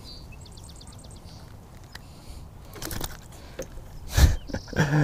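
Handling noises as a freshly caught largemouth bass is unhooked in a kayak: a short rapid rattle under a second in, a sharp tap near three seconds, and a loud thump a little after four seconds.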